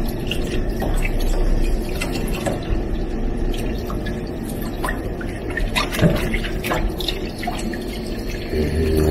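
Tap water running into a stainless steel sink and splashing over a squid held in the stream, with small wet splashes as hands peel and rinse off its skin.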